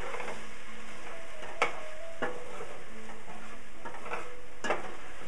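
Chopped onions and green peppers sizzling as they sauté in a stainless steel pot, stirred with a spoon that knocks sharply against the pot three times.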